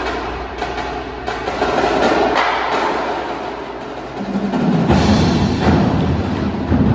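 Indoor percussion ensemble playing: marching drums and front-ensemble mallet instruments together, dense and continuous. A deep low part comes in about four seconds in and grows louder.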